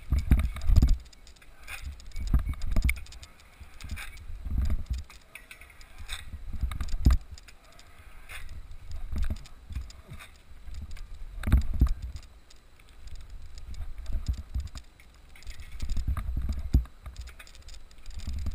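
Wind rushing over a body-worn action camera's microphone in low swells about every two seconds as the wearer bounces high on a cable-rigged trampoline, with clicks and rattles from the trampoline rig at the bounces.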